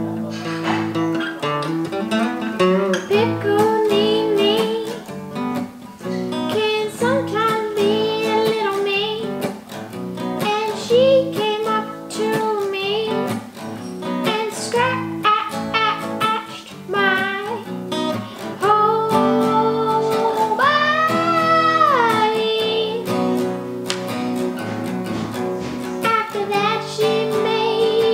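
Acoustic guitar strummed and picked in a steady accompaniment, with a young voice singing a melody over it.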